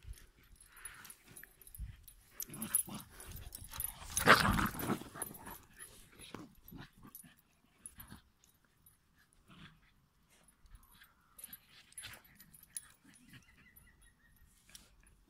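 A puppy and a larger dog play-fighting, making short dog noises. The loudest comes about four seconds in, and the second half is fainter.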